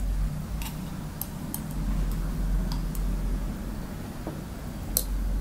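Faint mouth clicks and lip smacks from a person holding a teaspoon of oil under the tongue, with the metal spoon ticking lightly, over a low steady hum; one sharper click about five seconds in.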